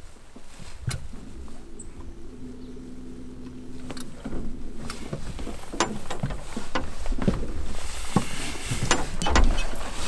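Handling noise from someone moving close to the microphone: scattered clicks, knocks and rustles that grow louder over the last few seconds. A faint steady low hum sits under the first part.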